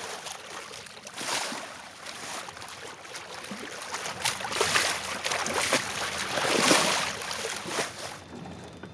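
Water rushing and splashing along a sailing boat's hull, a steady hiss that swells in about three surges and drops away near the end.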